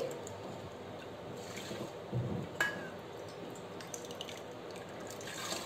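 Water poured into a steel bowl and tipped into an aluminium pressure cooker of soaked chana dal, a faint steady trickle, with one sharp metal clink about two and a half seconds in.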